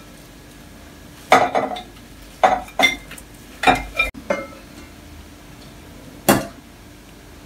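Chopped potatoes and carrots tipped from a glass bowl into a slow cooker's pot: a run of sharp clinks and knocks, some ringing briefly. One more knock comes about six seconds in, as a stainless steel saucepan is brought over to the slow cooker.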